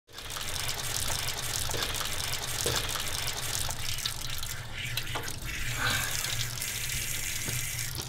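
Steady rushing of running water, as from a tap, over a low hum.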